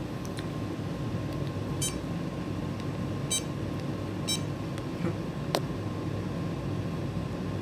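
Three short, high-pitched electronic beeps, spaced about a second apart, over a steady low hum, with one sharp click a little later.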